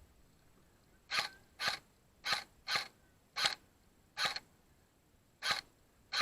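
Airsoft gun firing eight single shots at an uneven pace, roughly one every half second to a second, each a short sharp snap.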